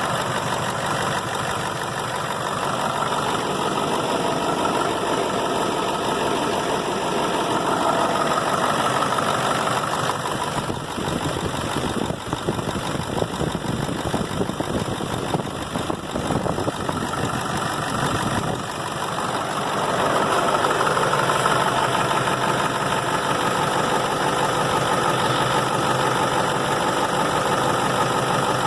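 Ford 7.3 L Power Stroke V8 turbodiesel idling steadily, with a diesel knock, with its new water pump fitted. The sound gets a little rougher and quieter from about a third of the way in, then steadies again about two thirds of the way in.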